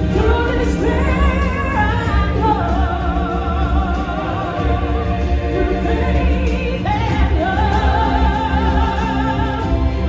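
Stage-show music with singers holding long wavering notes over a heavy, steady bass. A new vocal phrase comes in higher about seven seconds in.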